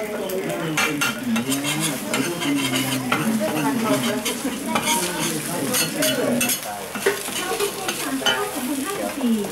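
Metal spatula scraping and stirring batter on a hot flat round griddle, with the batter sizzling as it fries. Many short sharp scrapes come in quick succession throughout.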